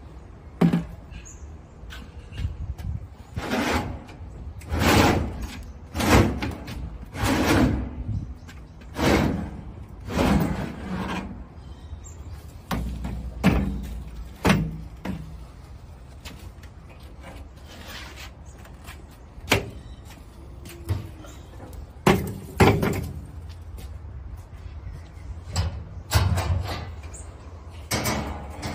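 Plastic mortar buckets and a wheelbarrow being unloaded from a ute's tray onto pavers: a run of short scrapes and clunks, then sharper single knocks.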